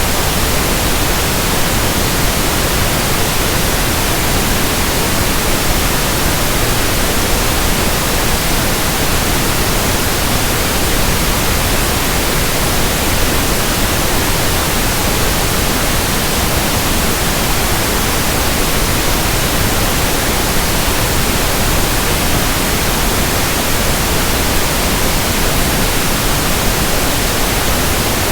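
Pink noise test signal: a steady, even hiss across the whole range, loud and unchanging.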